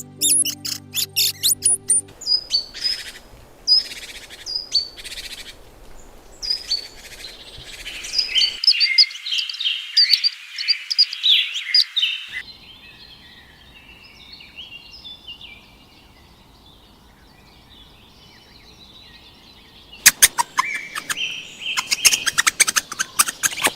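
Small birds chirping and calling in a series of separate recordings. There are sharp repeated chirps, then dense twittering, then a quieter stretch of soft warbling, and loud rapid chirping near the end.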